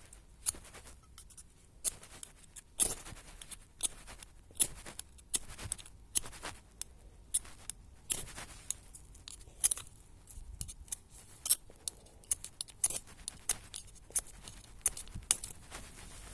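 Carbon-steel blade scraped again and again against a fire-starter to throw sparks onto cotton tinder smeared with petroleum jelly: sharp, irregular scraping strikes, one or two a second.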